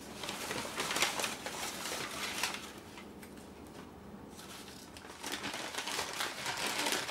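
Dry crinkling and rustling of something being handled, in two bouts of a few seconds each with a short quieter pause between.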